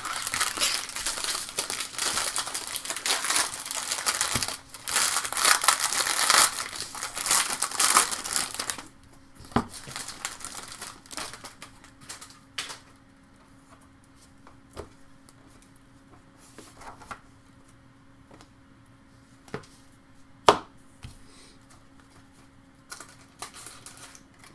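Trading card pack wrapper being torn open and crinkled for about nine seconds, then scattered light taps and clicks as the cards are handled, one sharper click late on.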